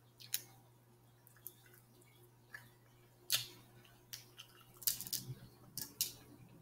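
Boiled shrimp shell being peeled by hand: scattered small crackles and clicks of the shell breaking and pulling away from the meat, coming closer together near the end.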